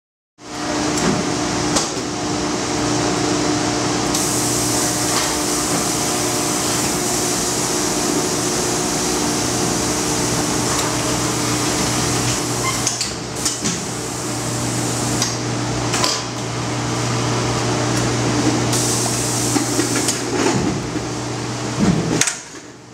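Cowen 120-frame air-ram honey extractor line running with a steady machine hum. A hiss comes in a few seconds in and stops near the end, and sharp metal clanks sound now and then in the second half.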